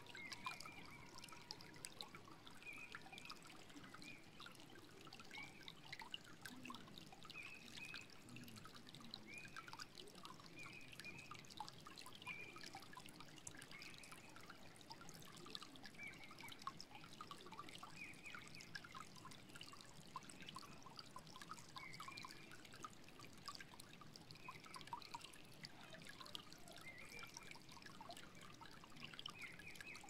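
Shallow stream flowing over stones: a faint, steady wash of water with frequent short high plinks.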